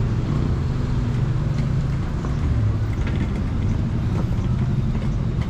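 Street traffic: a steady low engine rumble from motor vehicles, with a few faint ticks over it.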